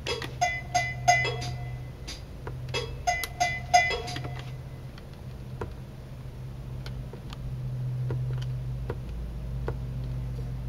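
Roland TR-505 drum machine playing two short phrases of bright, pitched electronic percussion hits for about four seconds, then stopping. After that come only the soft clicks of its buttons being pressed, over a steady low hum.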